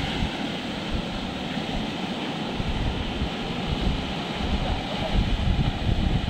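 Sea surf breaking and washing up the beach, with wind rumbling on the microphone.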